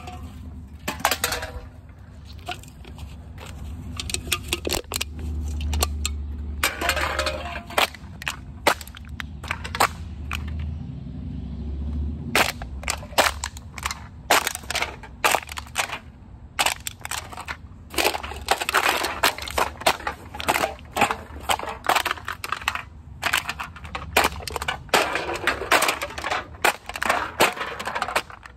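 Aluminum drink cans being stomped flat underfoot on asphalt: a long run of sharp crunches and clanks, often in quick clusters.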